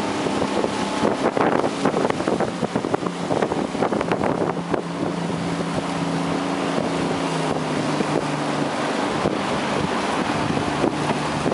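Boat motor running steadily under way, with wind buffeting the microphone and water noise.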